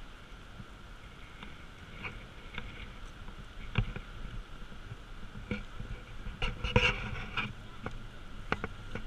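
Footsteps scuffing along a paved trail with patches of snow, with irregular knocks and clicks from walking with a handheld camera, and a louder cluster of knocks about seven seconds in.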